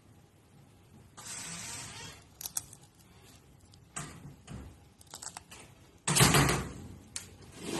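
Close-up eating sounds from candied strawberries: a brief rustle and scattered small clicks and knocks, then a loud crunchy bite into the hard sugar shell a little after six seconds in.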